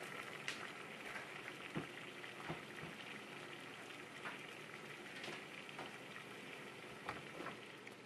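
Saucepan of water at a rolling boil on an electric stove: a steady bubbling hiss with occasional clicks.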